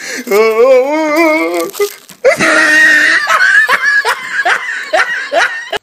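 Laughter: a wavering, giggling laugh for the first couple of seconds, then, after a short break, a louder burst of laughing that goes on in rhythmic pulses about two or three a second.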